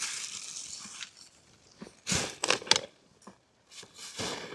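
Litter being grabbed and handled in the wind: a run of sharp crinkles and crackles about two seconds in, with a few lone clicks after, and a soft rush of wind noise in the first second.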